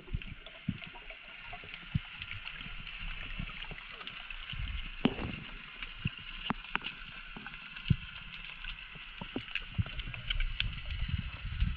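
Underwater sound picked up by an action camera below the surface: a steady hiss with many scattered sharp clicks and a few louder knocks around the middle.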